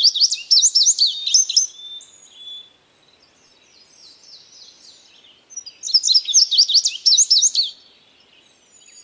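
A songbird singing fast, high chirping phrases in two bouts: one that ends about two seconds in, and another that starts about five and a half seconds in and lasts about two seconds, with faint calls between.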